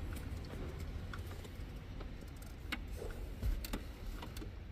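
A few faint, scattered clicks and rattles of plastic connectors and a wiring harness being handled, over a low steady hum.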